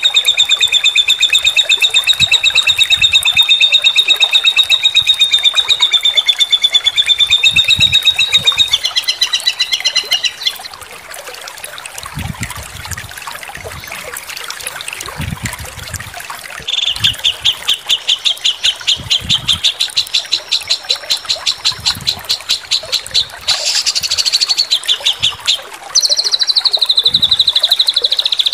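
Songbird tutor recording of sharp, rapid rattling trills ('tembakan' calls): a long, steady trill for about eight seconds, a softer stretch of scattered chirps in the middle, then more fast rattling trills and a trill that falls in pitch near the end.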